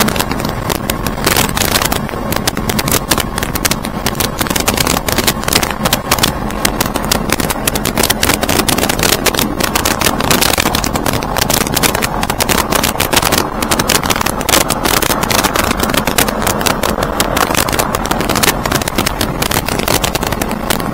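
Single piston engine and propeller of a light aircraft running steadily, heard from inside the cockpit as a loud, even drone.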